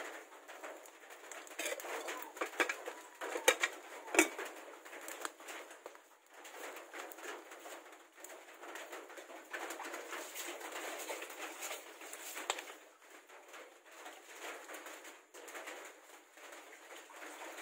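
Open wood fire crackling, with scattered sharp pops, as a plucked goose is singed over the flames; a bird coos in the background.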